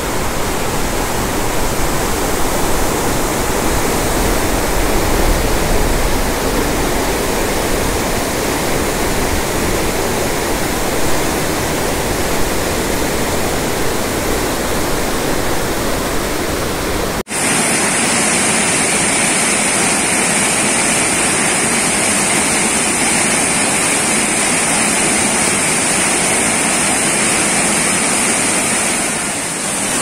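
Waterfall in monsoon spate, water rushing down steadily. About 17 s in it cuts to a closer, brighter hiss of water pouring and splashing right under the cascade.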